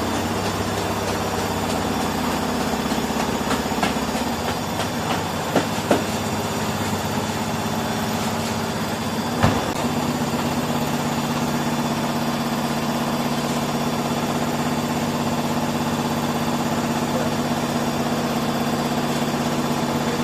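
LG washing machine spinning, its motor and drum making a steady hum whose pitch shifts about halfway through. A couple of knocks come near the middle, and a louder one just before the pitch change.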